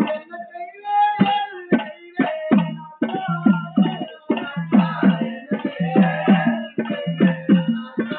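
Live music led by a hand drum. After a few loose strokes the drum settles about three seconds in into a fast, even beat of about three to four strokes a second, with a thin high held note over it later on.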